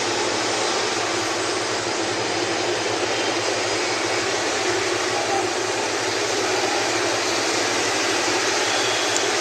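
Jet engines of an Airbus A320 airliner running steadily as it rolls along the runway: a constant, even noise with no change in level.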